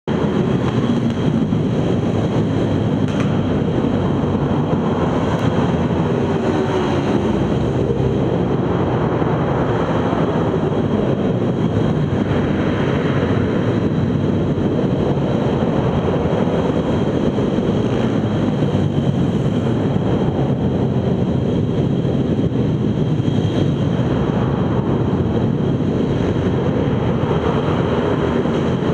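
Several pit bike engines running as the bikes lap the track, a continuous mechanical din that swells every few seconds as bikes come close, echoing in a large indoor hall.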